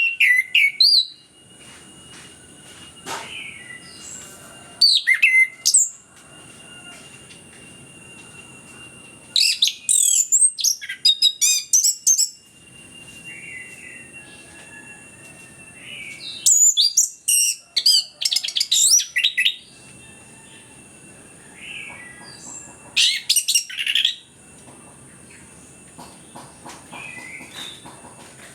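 Orange-headed thrush singing in bursts of rapid, varied, high-pitched phrases a second or two long, with pauses of a few seconds between them that hold a few soft call notes. A steady high hiss runs behind the song.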